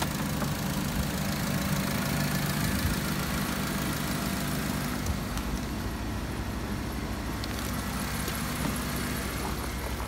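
Car engine idling steadily, a low even hum.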